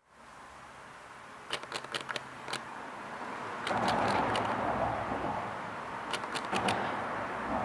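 Road traffic passing, its rush of tyre and engine noise swelling about halfway through. Two short clusters of sharp ticks come before and after the swell.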